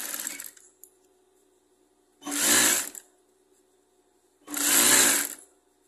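Sewing machine stitching in short bursts. A run stops about half a second in, then comes a gap and two louder bursts of under a second each, the second near the end. In each burst the motor speeds up and slows down.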